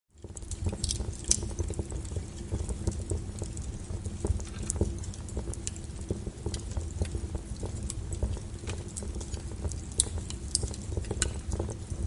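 Wood fire burning in an open fireplace: a steady low rumble of flame with irregular sharp crackles and pops from the burning logs, roughly one a second.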